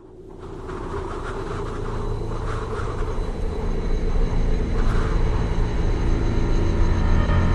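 A deep, steady rumble swells up out of silence over the first couple of seconds and then holds, with a few sustained tones running through it.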